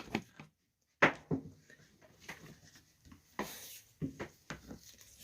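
A few light clicks and knocks with soft rubbing, from handling power cords and plugs. It starts with a brief moment of dead silence.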